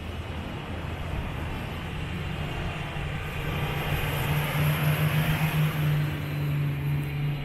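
Off-road 4x4 vehicle engine running as it drives over sand, with a steady rush of tyre and wind noise. The engine note grows louder about halfway through and holds.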